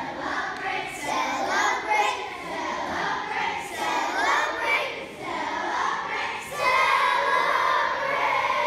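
Children's voices singing together, ending on a louder held note.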